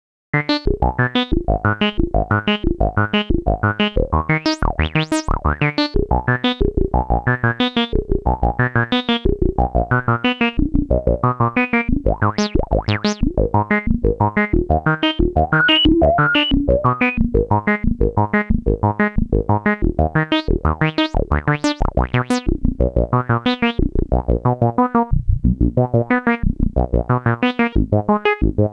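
Electronic intro music: short, evenly spaced keyboard notes, about three a second.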